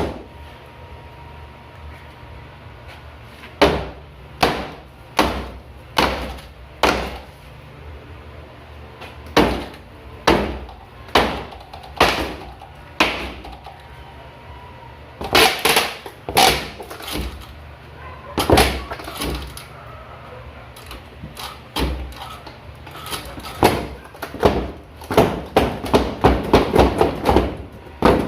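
A broken cabinet being knocked apart, with repeated hard blows striking it. The blows come at first singly, under a second apart. Near the end they come in a fast, dense flurry.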